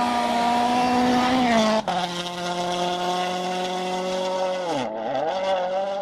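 Racing car engine held at steady high revs; its pitch steps down slightly about two seconds in, then drops sharply and climbs back near the end.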